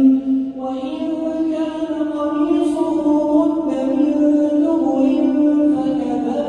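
A man's voice reciting the Quran as a slow melodic chant, drawing out long held notes that step up in pitch about a second in.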